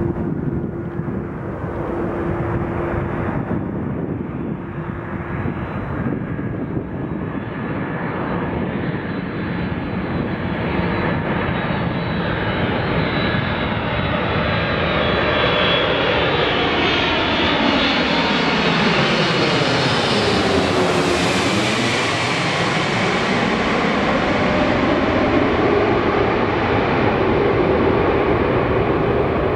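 Boeing 747-400 on final approach, its four Pratt & Whitney PW4056 turbofans running with a high whine over a broad rumble. The sound grows louder as the jet comes in, sweeps through a whooshing, phasing change as it passes overhead about two-thirds of the way in, then starts to recede.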